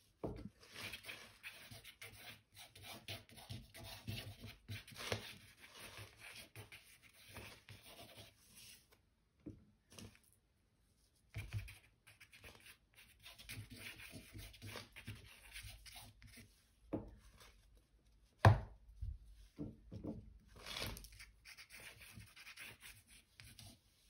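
A twig dipped in ink scratching and scraping across drawing paper in quick, irregular strokes. There is a short pause partway through and a sharp tap about three-quarters of the way through.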